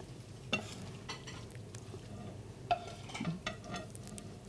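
Wooden spatula scraping and pushing cooked pasta out of a nonstick frying pan onto a serving plate: irregular soft scrapes and light knocks of spatula on pan, with the pasta sliding off.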